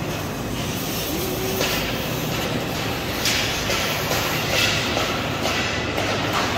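A steady, loud rumbling noise, with a few short metallic clanks from steel shelving parts being handled and fitted together, the first about three seconds in.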